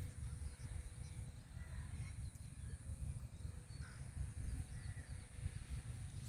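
Quiet outdoor ambience: a steady low rumble with a few faint, scattered bird calls.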